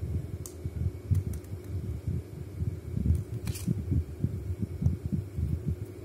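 Low, irregular rumbling handling noise from the microphone held close to the hands, with a few faint clicks, the clearest about three and a half seconds in, as a small metal dial combination padlock is handled.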